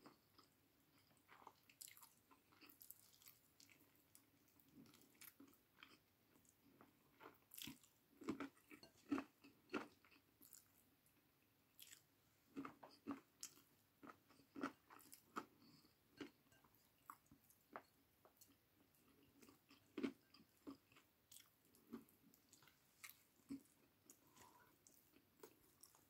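A person chewing chicken and rice close to the microphone: faint, wet mouth clicks that come in clusters with short pauses between.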